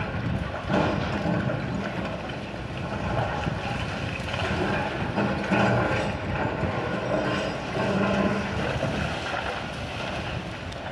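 Hydraulic excavator's diesel engine running and working under load while demolishing a house, with a couple of louder crashes of falling masonry and rubble.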